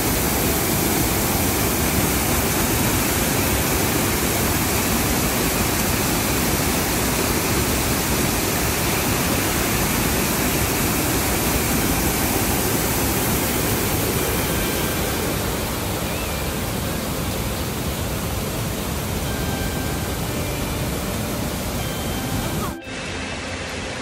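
Waterfall and shallow stream rushing over rocks: a steady, loud rush of water. It cuts off abruptly about a second before the end.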